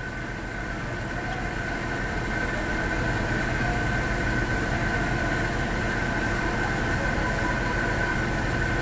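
Steady hum of a parked car's idling engine and ventilation fan, heard from inside the cabin: a low rumble with a thin steady whine over it, growing slightly louder.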